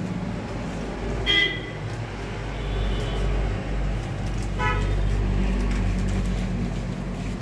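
Road traffic: a steady engine rumble with two short horn toots, the louder one about a second in and another after about four and a half seconds.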